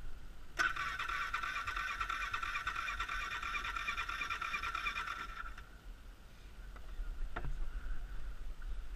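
Electric starter of a 2013 Polaris Sportsman 500 cranking for about five seconds, a steady whir with a fast ticking, then cutting off abruptly without the engine catching; the ATV had just been dunked in a lake. A single sharp click follows a couple of seconds later.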